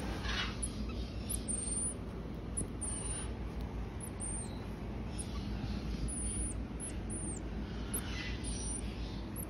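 Baby marmosets giving high-pitched whistled calls, short and repeated every half second to a second, several held on one note and then dropping at the end.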